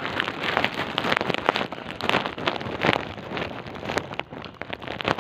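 Rain pattering on a surface: a dense, irregular stream of small ticks and taps that starts suddenly.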